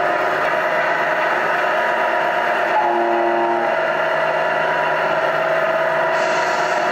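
Simulated big-rig diesel engine sound from the onboard sound unit of a Tamiya Knight Hauler RC semi truck, running steadily as the truck drives. A horn sounds for about a second about three seconds in, and a short hiss comes near the end.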